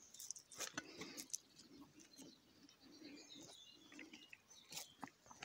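Near silence with faint scattered clicks and rustles from a mesh crayfish trap being handled.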